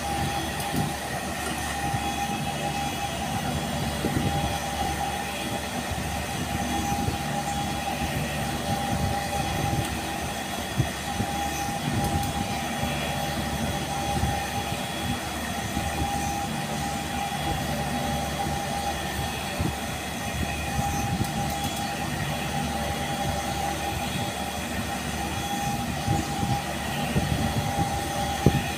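Steady mechanical hum with a constant high whine over a low rumble, and a few light knocks; machinery running in a workshop.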